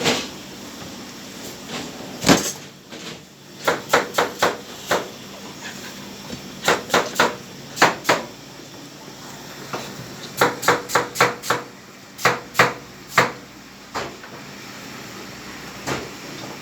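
Sharp knocks and taps of a butcher's knife and a slab of beef against a cutting board while the meat is cut and turned, coming in irregular clusters of two to six strikes.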